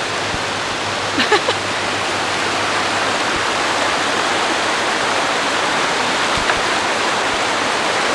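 Steady rush of fast-flowing creek water, with a few brief knocks about a second in.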